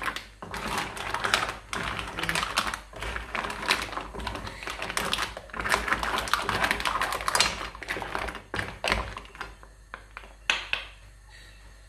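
Mussel shells clattering together in a cooking pot: a rapid, irregular run of clicks that thins out and quietens near the end.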